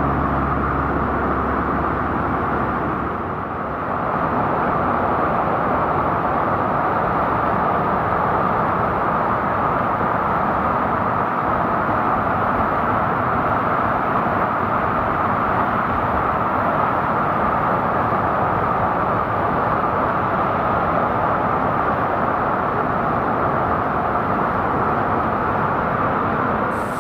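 Waterfall rushing: a steady roar of falling water, with a brief dip about three and a half seconds in.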